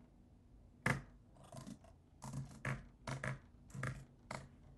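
Computer keyboard typing: a dozen or so short, irregular keystroke clicks.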